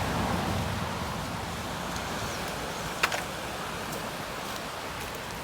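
Steady rushing noise of sea surf, with a single sharp click about three seconds in.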